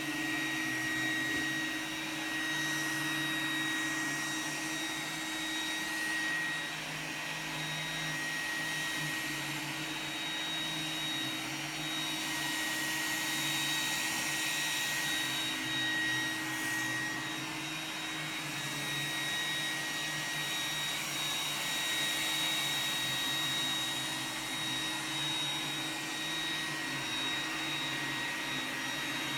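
Roomba robot vacuum running steadily: a continuous motor hum with a thin, high whine.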